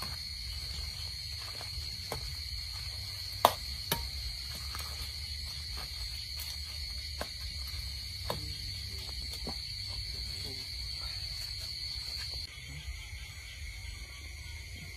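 Steady shrill trill of crickets with a low rumble beneath, and two sharp clicks a little over three seconds in. The higher part of the trill drops away near the end.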